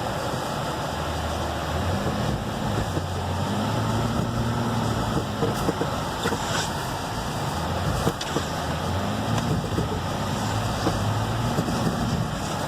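Jeep engine in four-wheel drive revving up and down several times as the tyres churn through deep snow, a steady rushing noise under the engine: the vehicle is sliding and close to getting stuck.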